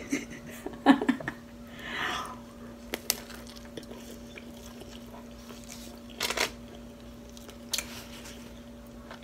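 Quiet biting and chewing of a soft flour-tortilla chicken taco with lettuce: a few short crunches and mouth clicks, spaced apart, over a steady low hum.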